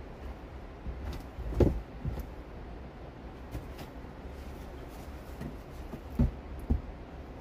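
Stones being lifted and set down on a stacked stone wall: a dull thud about one and a half seconds in, the loudest, and two more near the end about half a second apart, with faint clicks and scrapes of rock between, over a steady low rumble.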